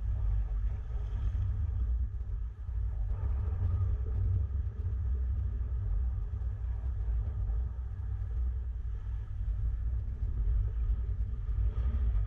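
Wind buffeting a GoPro camera's microphone: a low rumble that keeps swelling and dipping.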